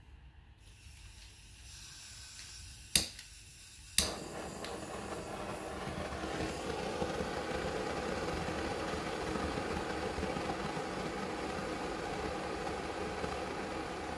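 Hand-held gas blowtorch on a canister: two sharp igniter clicks about a second apart, the second lighting it, then the steady hiss of the burning torch flame, which swells slightly over the next few seconds and then holds even.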